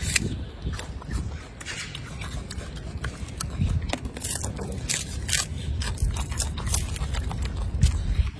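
Golden snub-nosed monkey biting and chewing apple and lettuce: irregular crisp crunches and leaf rustling over a low rumble.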